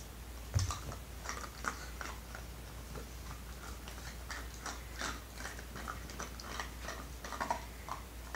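Two puppies chewing and gnawing on a hard chew toy bone, with irregular clicks and taps of teeth on the toy and one low thump about half a second in, over a steady low hum.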